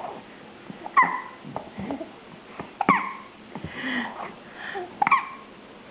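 Baby hiccupping: three sharp little hics about two seconds apart.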